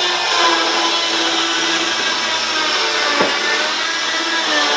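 Bosch GKS 10.8V cordless mini circular saw running steadily while cutting through 18mm OSB board, with one sharp knock about three seconds in.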